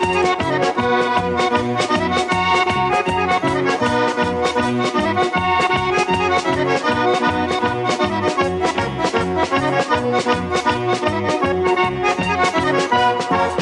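Organetto (Italian diatonic button accordion) playing a fast tarantella: a melody over a pumping bass-and-chord accompaniment at about four to five beats a second. The tune stops on its last note right at the end.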